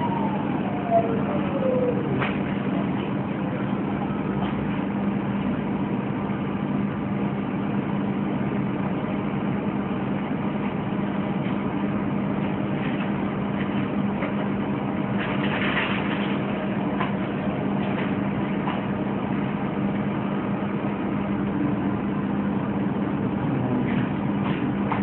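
A steady low hum with hiss throughout, like machinery or recording hum. A falling tone glides down during the first two seconds.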